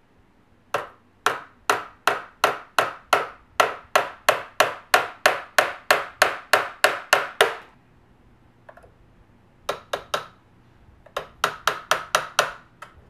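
Small hammer tapping a punch to drive a roll pin into a flip-up front sight mount: a steady run of sharp taps, about three a second, for several seconds. After a pause come two more taps, then a quicker run of taps near the end.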